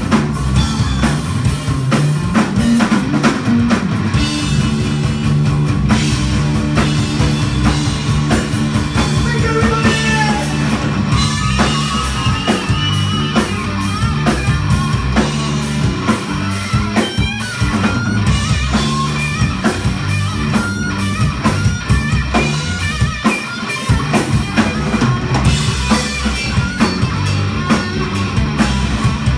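Live blues-rock trio playing an instrumental passage: an electric guitar lead with bent notes over electric bass and a drum kit.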